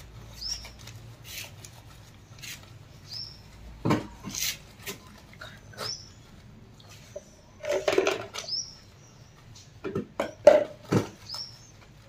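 Hands working shampoo lather into a wet Lhasa Apso's head and face, with a few short, louder wet squelches and splashes. A bird chirps a short call about every three seconds in the background.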